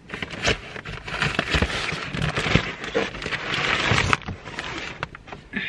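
Rustling and shuffling of a sleeping bag and inflatable sleeping mat being moved about, with scattered knocks and clicks. The rustling stops about four seconds in, leaving a few clicks.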